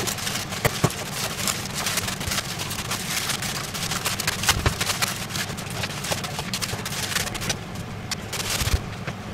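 Kitchen work at a counter: many small clicks and clatters of utensils, dishes and packaging over a steady low hum.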